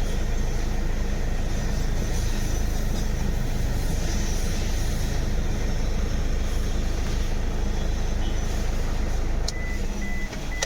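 Toyota Fortuner diesel engine idling steadily and evenly, its misfire cured after cut injector wiring was rejoined. Near the end the engine sound drops away and a few short high beeps sound.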